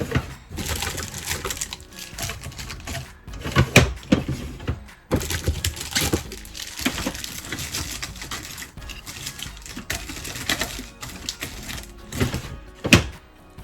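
Small items being handled and moved around: irregular clicks and knocks with rustling of packaging, over background music. There is a louder knock about four seconds in and another near the end.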